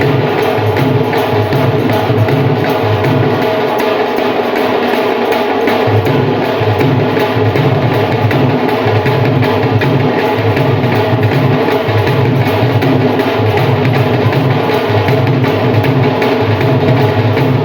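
Folk drumming on dhol and nagada drums with a steady, repeating loud beat.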